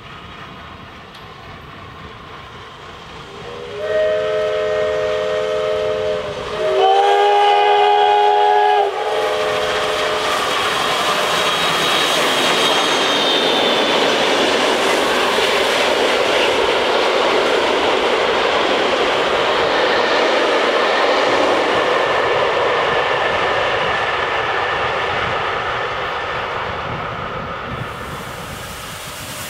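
Steam locomotive whistle sounding two blasts of a several-note chord, a first one of about two and a half seconds and then a louder, shorter one. The train then passes close with a loud rushing noise that swells, holds and fades near the end.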